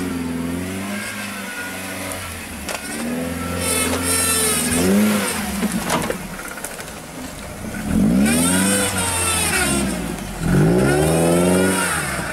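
Lifted Suzuki Jimny's engine revving hard under off-road load, its pitch rising and falling several times as the driver works the throttle.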